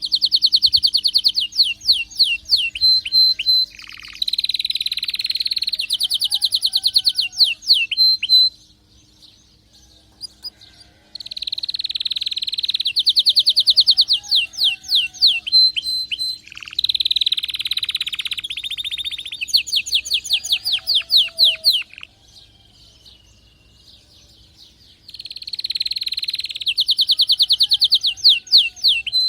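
Excited domestic canary in full song: three long, loud runs of rapid, high-pitched trills and rolls, each broken off by a pause of a few seconds.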